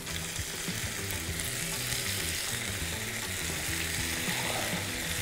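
Yogurt-marinated chicken drumsticks sizzling as they are laid into hot ghee; the sizzle builds over the first couple of seconds as more pieces go in, then holds steady.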